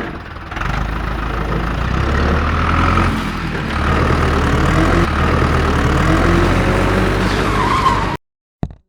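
A vehicle engine running with a steady low rumble, then cutting off suddenly near the end.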